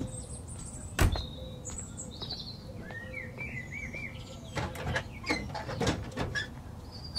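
A car door shuts about a second in, the loudest sound, while small birds chirp and trill. Later come a few short clicks and knocks as an iron gate is handled.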